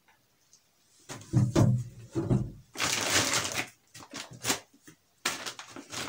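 Produce being handled on a kitchen counter: knocks as arrowroot corms are set down, then a plastic shopping bag rustling as sweet potatoes are taken out of it, followed by a few more knocks.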